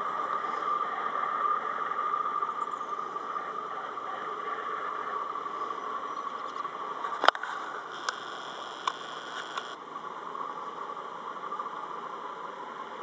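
Massey-Ferguson 4365 tractor engine running steadily under the load of a slurry tanker, heard across a field and fading a little as the tractor moves away. One sharp click about seven seconds in, followed by a few fainter clicks.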